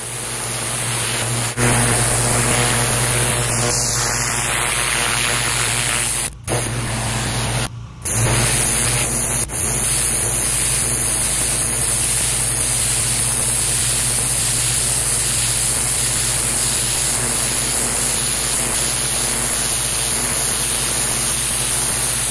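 Pressure-washer wand spraying a high-pressure water jet onto a concrete walkway, a steady loud hiss with the machine's low steady drone underneath. The spray breaks off briefly twice, about six and eight seconds in.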